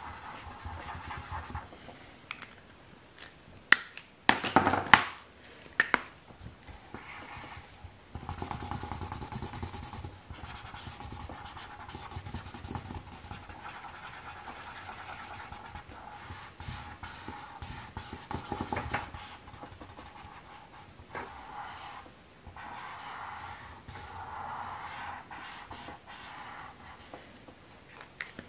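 Felt-tip marker rubbing back and forth on paper, coloring in a large area stroke after stroke. A few sharp knocks stand out about four to six seconds in.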